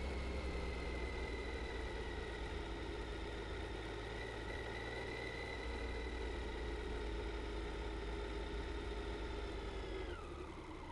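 Triumph Tiger 800 XC's three-cylinder engine running as the motorcycle rides along a tarmac road, with tyre and wind noise; the engine note eases slowly down, then falls sharply and gets quieter near the end.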